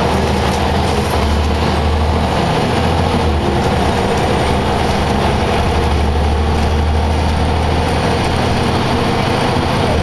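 Scania L94UB Wright Solar single-deck bus heard from inside the passenger saloon: the rear-mounted diesel engine runs with a steady low drone as the bus drives along, over a haze of road and body noise. The drone dips briefly about three seconds in.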